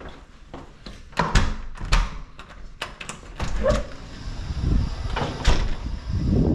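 Irregular knocks, bumps and scrapes, with the loudest bangs about a second and a half in and again about five and a half seconds in.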